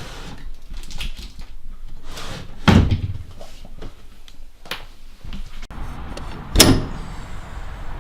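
A door being handled, with two heavy thuds about four seconds apart and lighter knocks between them.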